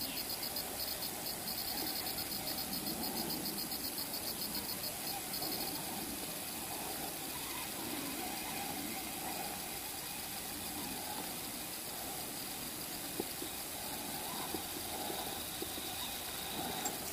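A high, fast, evenly pulsing chirp like an insect's that stops about five seconds in, over a faint steady outdoor hiss.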